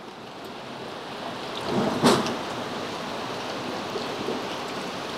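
Steady hiss of rain, building a little over the first two seconds. A single sharp metal clink comes about two seconds in as the smoker's rack of jerky is handled.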